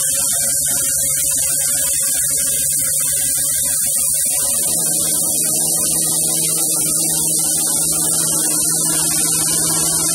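Five-axis CNC router spindle running at high speed while a long end mill cuts EPS foam: a steady high-pitched whine over a low hum. The low tones shift about four and a half seconds in.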